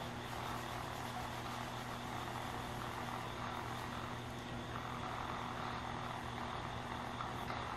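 Spirit box radio sweeping through stations, putting out a steady hiss of static with a low hum under it.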